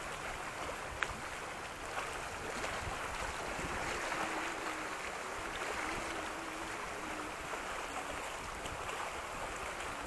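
Sea waves washing against a rocky shore, a steady rush, with wind on the microphone. A sharp click about a second in and a fainter one a second later.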